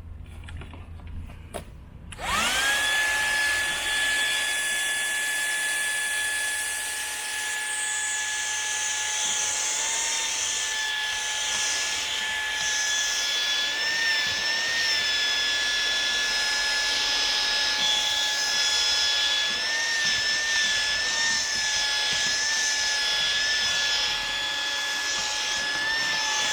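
A SEHENTOOLS CV108 12 V handheld car vacuum cleaner is switched on with a click about two seconds in. Its motor whine rises quickly to a steady high pitch and keeps running, wavering slightly in pitch a few times as it sucks up dust, sand and small rocks.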